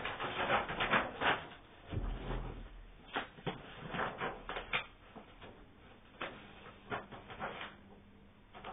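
Irregular rustling and light knocks from things being handled, busier in the first few seconds and thinning out later, with a dull low thump about two seconds in.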